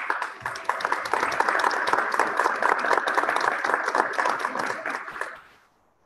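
A large crowd of legislators and guests applauding, starting at once and dying away about five seconds in.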